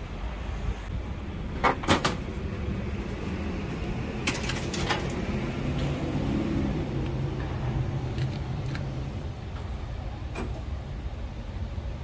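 Sheet-metal cover panel of an air-conditioner outdoor unit being pried loose and lifted off: a few sharp knocks about two seconds in and a burst of clattering rattles around the middle, over a steady low rumble.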